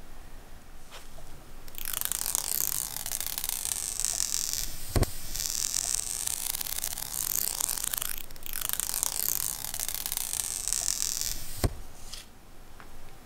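Plastic protective film being peeled off an iPhone 12 Pro Max's glass screen: a long high hiss of the film lifting away that lasts about ten seconds. There is a sharp knock about five seconds in and another near the end.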